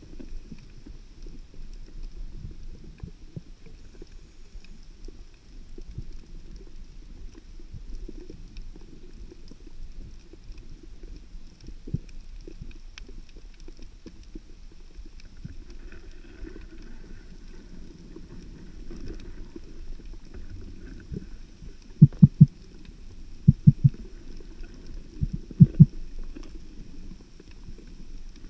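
Muffled underwater rumble of water moving past a camera housing mounted on a speargun during a slow dive glide. About two thirds of the way in come three quick clusters of loud, low knocks, each lasting well under a second.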